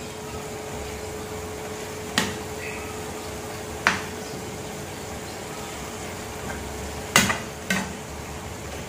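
Metal spatula stirring and scraping a stir-fry in a stainless steel frying pan over a steady low sizzle, with four sharp clanks of the spatula against the pan, the last two close together near the end.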